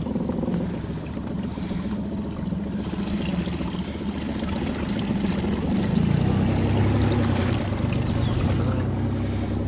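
Outboard motor of an inflatable PVC boat running, with water rushing past the hull. About six seconds in the engine note drops lower and gets louder.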